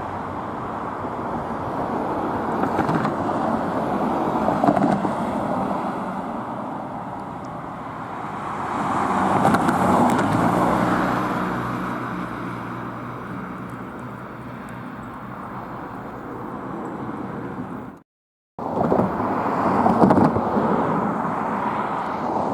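Car driving, with steady road and engine noise as picked up by a dash cam. The noise swells around ten seconds in with a deeper engine note. It cuts out briefly about eighteen seconds in.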